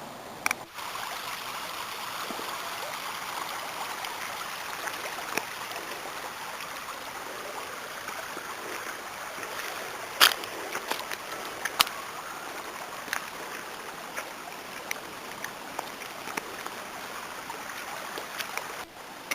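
River water flowing, a steady rushing wash, with a few sharp clicks, the loudest about ten and twelve seconds in.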